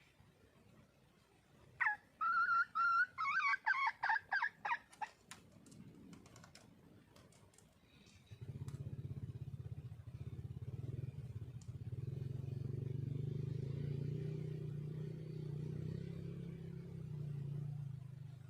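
Red junglefowl hen calling: a quick run of about eight short, loud pitched clucking notes about two seconds in. About halfway through, a steady low engine drone starts and continues.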